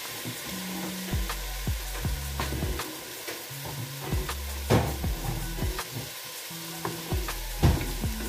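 Food sizzling in a pot on the stove, with scattered sharp knocks and clicks of kitchenware. The loudest knocks come about halfway and near the end. Background music with held low bass notes runs underneath.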